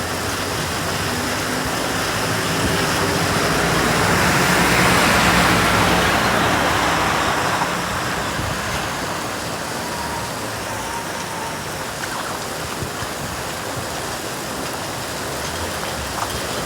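Steady rain falling, with a vehicle passing on a wet road. Its tyre hiss and low engine hum swell over the rain about three seconds in, then fade by about eight seconds.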